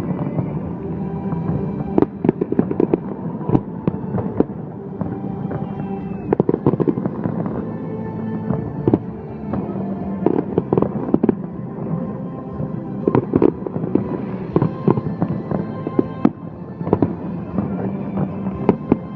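Fireworks bursting in quick succession, several sharp bangs a second, over music with held notes.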